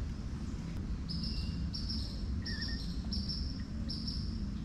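An insect chirping in a steady rhythm: short, high chirps about every two-thirds of a second, starting about a second in, over a low steady outdoor background.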